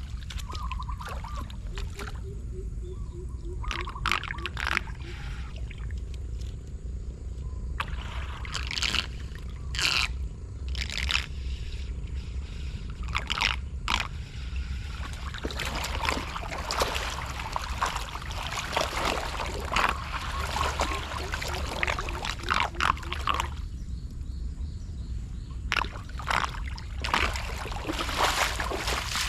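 Floodwater splashing and sloshing in irregular bursts over a steady low rumble, with trickling and gurgling between the splashes.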